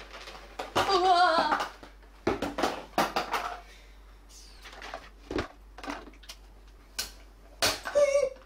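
Plastic parts of a toy cash register being handled and fitted together: short knocks and clatters through the middle. A wavering wordless vocal sound, like humming, comes about a second in and again near the end.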